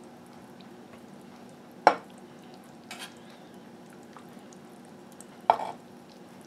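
A metal utensil clinking against cookware as roasted potatoes and carrots are lifted out of a cast iron roaster: two sharp clinks about three and a half seconds apart, with a softer one between them, over a low steady hum.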